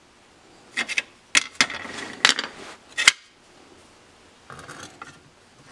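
Handling knocks and clatter as a plastic layout tool is handled and set down on a steel bar end and a steel table: about half a dozen sharp clicks and knocks over the first three seconds, then a softer rattle near the end.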